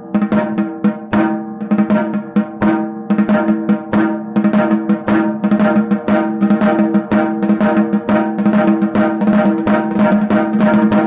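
Snare drum with an Evans head played with wooden drumsticks: a fast, unbroken run of strokes with regular louder accents, the head ringing at a steady pitch between hits.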